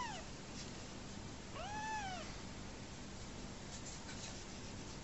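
A very young kitten mewing: the end of one high mew at the very start, then one full mew about one and a half seconds in that rises and falls in pitch.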